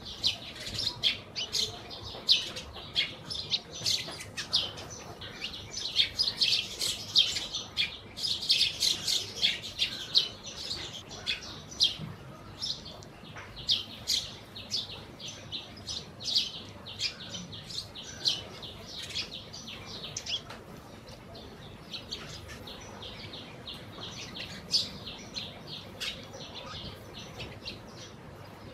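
A flock of Eurasian tree sparrows chirping busily while feeding, many short overlapping chirps, thinning out to scattered chirps after about twenty seconds.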